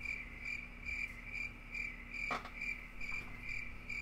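A cricket chirping steadily, about two chirps a second, with a single light tap a little past halfway.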